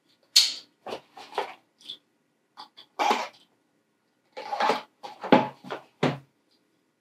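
Product box being handled and worked open: a string of short, irregular scrapes and rustles.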